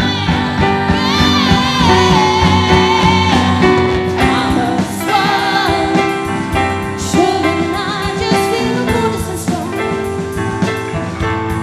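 Live band playing an alternative folk / dream-pop song: a singer's wordless, wavering vocal line over sustained instrument notes and a steady drum beat.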